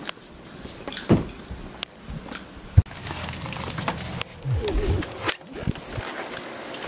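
Footsteps and handling noise from a handheld camera being carried through a house and out a door, with scattered knocks and thumps; the sharpest knock comes about three seconds in.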